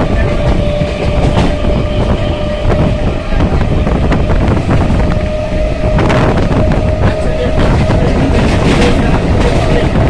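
Suburban electric train running at speed, heard from inside the carriage: a loud steady rumble with a faint steady whine and a few clicks of the wheels over rail joints.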